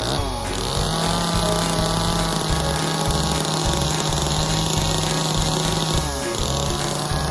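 Small chainsaw engine running at high revs, its pitch dropping and climbing back right at the start and again about six seconds in.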